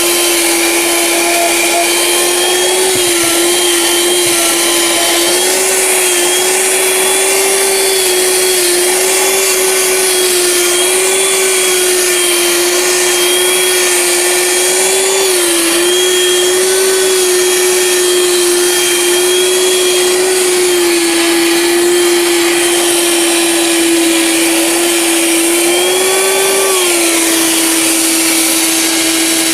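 Bolde Oto Hoover 12 V handheld car vacuum cleaner running continuously: a steady motor whine over a strong rush of air, its pitch wavering briefly now and then, most markedly near the end.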